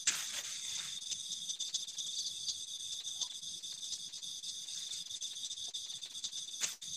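Night insects, crickets, trilling steadily together at several high pitches, with a sharp click just at the start and another near the end.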